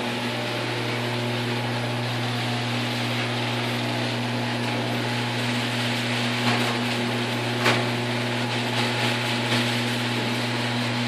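Genie Pro screw-drive garage door opener running through a full door cycle: a steady buzzing motor hum with the whir of the turning screw rail and the door rolling on its metal rollers, with a couple of faint clicks partway through.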